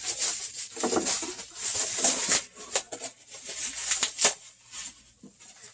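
Rustling and crinkling of packaging being handled, with irregular clicks and taps; one sharper click a little after four seconds, then it dies away near the end.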